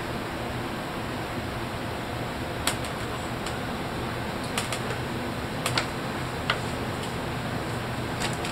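A few short, sharp clicks and taps of a cat's claws and paws on the top and door of an open upright freezer as it leans in, spread irregularly over a steady background hiss.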